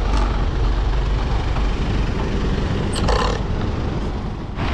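Wind and road noise rumbling on the microphone of a road bike's camera while riding through traffic, with cars passing. A brief, louder burst of sound comes about three seconds in.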